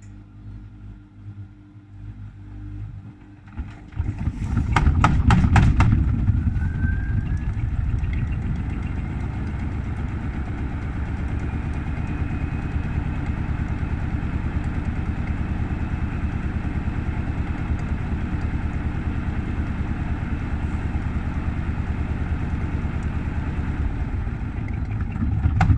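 Gorenje WaveActive washing machine loaded with snow, in test mode: about four seconds in it speeds up with a burst of sharp clicks, and its motor whine rises in pitch over several seconds. The drum then spins steadily with a loud low rumble, and stops near the end.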